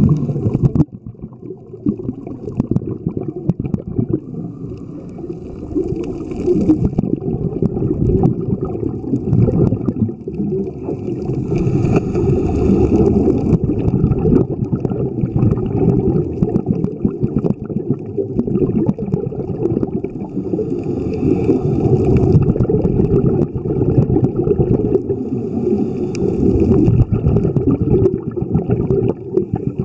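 Muffled underwater noise picked up by a camera in its waterproof housing: a dense low rumble of moving water, with a higher hissing rush every several seconds.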